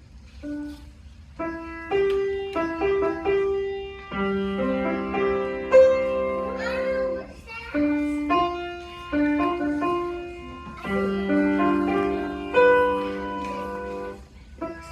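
Solo piano played as a recital piece: melody notes and chords, each struck and left to ring and fade, with a few louder accented notes.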